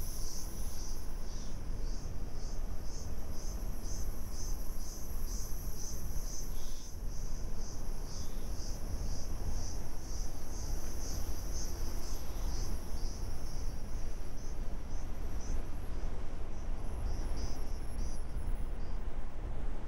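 Insects chirping in a high, pulsing trill, about two pulses a second, fading out near the end, over a steady low rumble.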